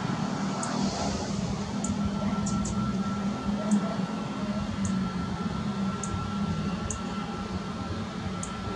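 Boeing 737 MAX's CFM LEAP-1B turbofans idling as the airliner taxis, a steady low hum with a thin, steady whine over it.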